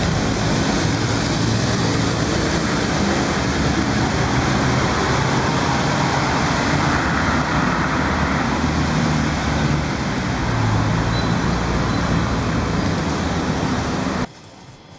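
Busy city street traffic: cars and motorcycles driving past with engines running, a steady wash of road noise. It cuts off sharply near the end.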